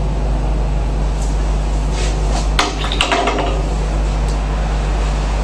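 Metal clinks and knocks of an espresso portafilter being handled and locked into the group head of an Ascaso Steel espresso machine, with a cluster of sharp clacks between two and three seconds in. A steady low hum runs underneath.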